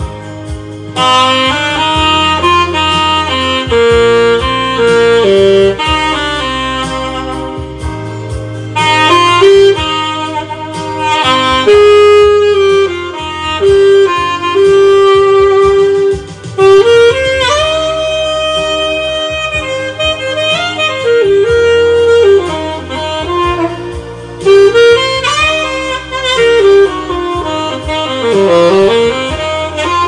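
Saxophone playing a melody over a steady low backing accompaniment.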